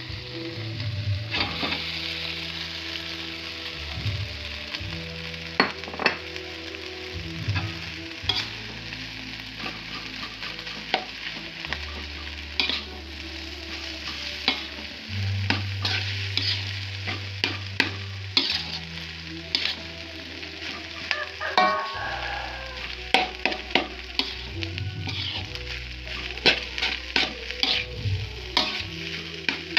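Fried rice and vegetables sizzling in a wok while a spatula stirs and tosses them, scraping and clinking against the pan many times over a steady frying hiss.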